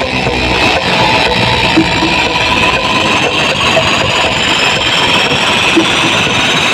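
Dev Audio DJ sound system playing loud, dense music during a sound check, a thick wash of sound filling the whole range.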